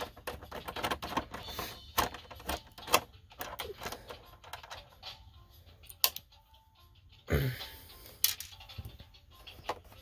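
Hard plastic casing of an all-in-one computer clicking and tapping under the hands as its back cover is pressed and handled, a run of small sharp clicks with a louder knock a little past seven seconds in.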